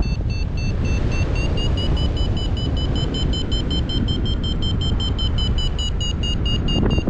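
Paragliding variometer beeping rapidly, about five short beeps a second, its pitch rising slightly midway and easing near the end: the climb tone that signals the glider is going up in lift. Wind rushing over the microphone underneath.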